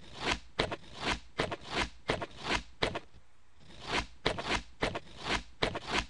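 Quick scratchy strokes of a pen on paper as straight lines are drawn, about three strokes a second, with a short pause about three seconds in.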